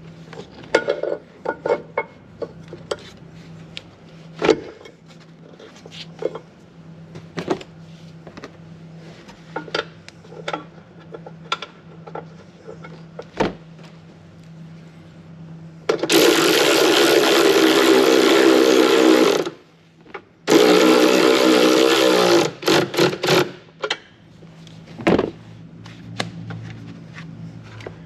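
Light clicks and knocks of battery parts and covers being handled, then a cordless power tool running with a steady whir in two bursts, about three and a half seconds and then about two seconds, tightening hardware at the battery.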